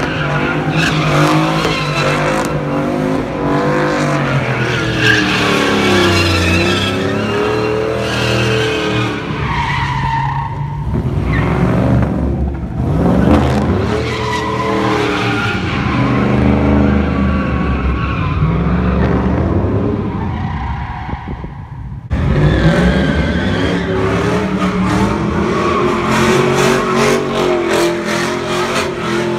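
Pickup truck doing donuts, its engine revving up and down while the spinning rear tires squeal and skid on the asphalt.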